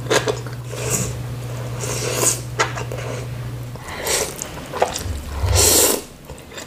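Close-up eating sounds of instant noodle soup: wet chewing and lip smacks with sharp clicks, then a long loud slurp of noodles about five seconds in. A low steady hum runs underneath and stops about four seconds in.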